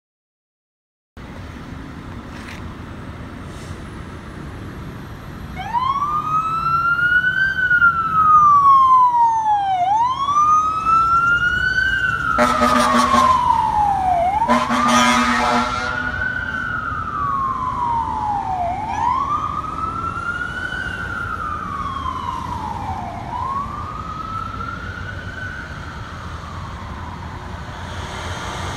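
Fire engine siren wailing, rising and falling slowly about every four seconds over steady traffic noise, with two short horn blasts about halfway through; the siren grows fainter near the end.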